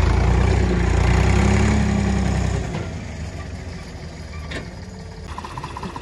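Diesel engine of a Volvo BM loader tractor running loudly as it moves past carrying a round bale, its note rising slightly. It drops to a much quieter hum about three seconds in.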